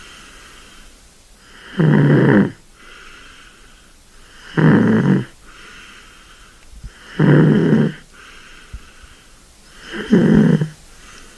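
Sleeping kitten snoring: four loud snores about every two and a half to three seconds, with a softer breath between them.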